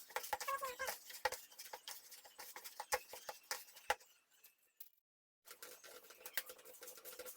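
Hands mixing and kneading soft, sticky bread dough in a bowl: irregular small taps and squelches. The sound drops out to silence for about a second near the five-second mark.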